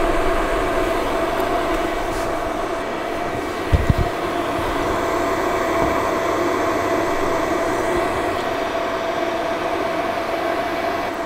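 A fan running steadily: an even rushing noise with a steady whining tone over it. A couple of dull low thumps about four seconds in.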